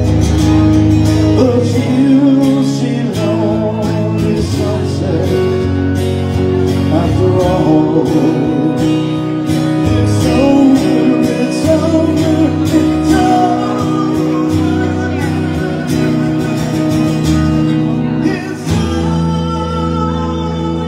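A man singing live into a microphone while playing an electric guitar, with the guitar and a steady bass line under the voice.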